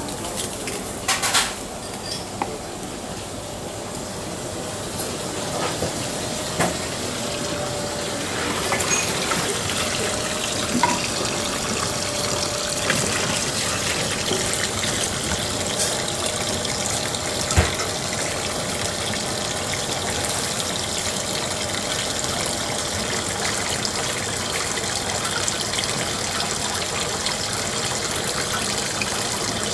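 Steady running water, a little louder after the first several seconds, with a few sharp knocks here and there; the loudest knock comes a bit past the middle.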